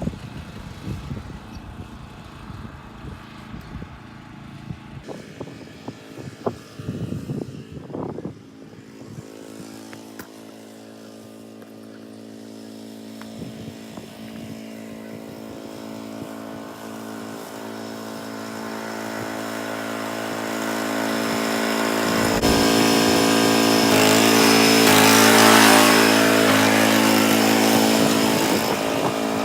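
Small lawn mower engine running at a steady pitch, getting much louder over the second half to a peak near the end, then easing a little. Scattered knocks and clicks in the first several seconds.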